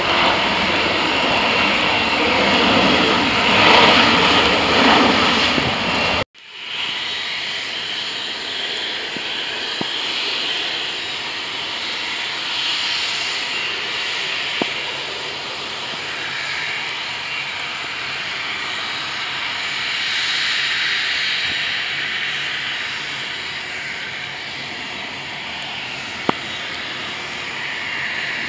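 Boeing 737-800's jet engines running loud during the landing roll on a wet runway, swelling about four seconds in and then cut off abruptly about six seconds in. A steady, quieter noise follows, with a couple of faint clicks.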